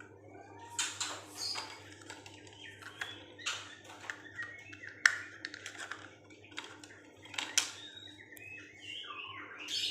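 Irregular clicks and knocks of feed and water cups being fitted into a bird cage, with birds chirping near the end.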